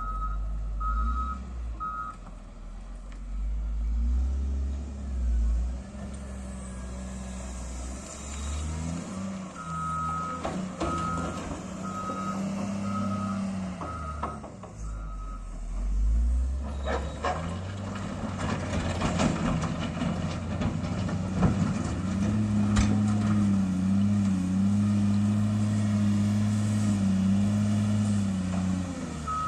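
A heavy construction machine's diesel engine running, its reversing alarm beeping about twice a second at the start and again around the middle. In the second half the engine note rises and holds as it works under load, with sharp clanks of metal or rock.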